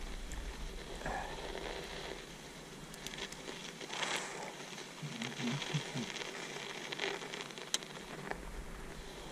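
Bicycle tyres crunching through fresh snow: an uneven crackling with scattered ticks and rustles, loudest about four seconds in.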